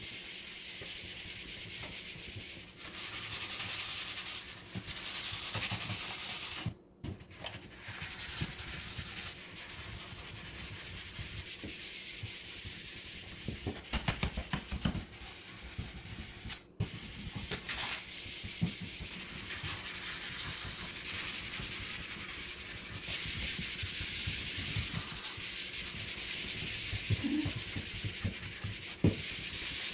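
Hand sanding a wooden side table panel with a sanding block: a steady scratchy rasp of sandpaper rubbed back and forth over the wood, scuffing the old finish before painting. There are a few light knocks about halfway through, and the sound cuts out briefly twice.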